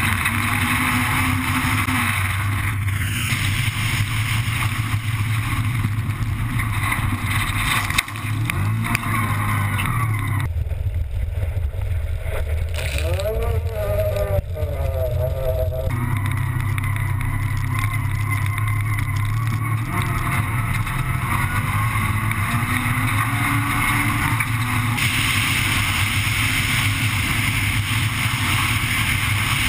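Honda Civic Type R rally car's four-cylinder engine running hard through the gears on a gravel stage, heard from inside the car over a steady rush of gravel and wind. For about five seconds around the middle the sound turns duller while the engine pitch swings up and down.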